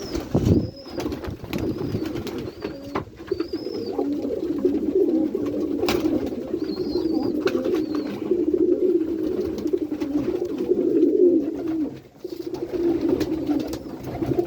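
A loft full of white Kaguji high-flyer pigeons cooing together in a dense, continuous chorus. Scattered sharp clicks and a few faint high chirps sound through it, with a low thump just after the start.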